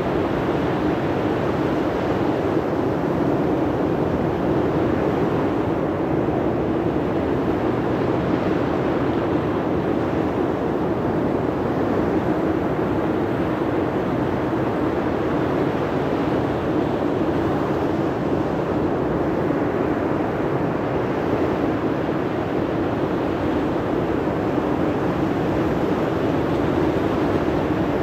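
Steady rushing noise of sea surf breaking and wind, holding at an even level throughout.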